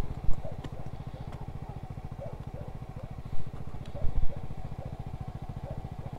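Honda Pop 100's small single-cylinder engine idling with an even putter, with a few dull knocks from handling close by.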